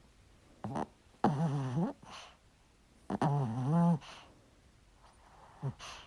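Small dog snoring: two long snores with a droning, wavering pitch, each followed by a short puff of breath out, with brief snorts about a second in and near the end.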